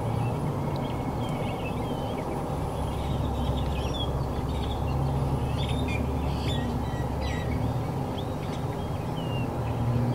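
Small birds chirping over and over in short, high calls that glide up and down, over a steady low hum.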